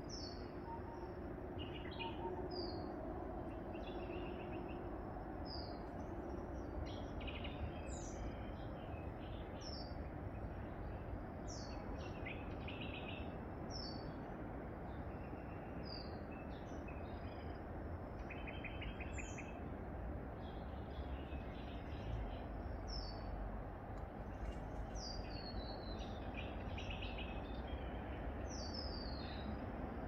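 Small birds calling: a short, high, falling chirp repeated about every two seconds, with other scattered twittering, over a steady low background rumble.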